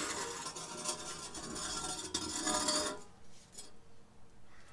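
Old exhaust muffler being tipped and shaken, loose chunks of broken catalytic converter substrate rattling and scraping around inside it, dying down about three seconds in. The converter guts lodged in the muffler are taken by the owner to have caused a lot of back pressure.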